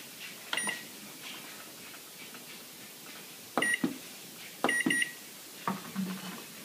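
A few light glass clinks, each with a brief high ring, as glassware knocks against glass during pouring. The two clearest come a little past the middle.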